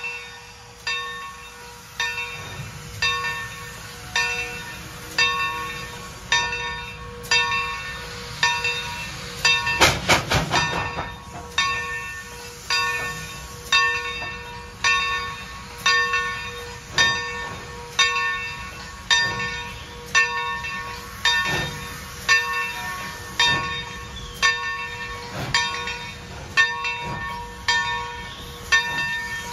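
Steam locomotive bell ringing steadily, about one stroke a second, as a string of coupled steam locomotives creeps along. About ten seconds in, a quick run of clanks, the loudest moment, as slack takes up between the coupled engines.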